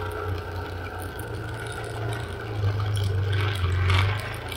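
Vehicle engine drone with rattling and clattering as it drives over a rough dirt trail, the clatter getting louder about three and a half seconds in.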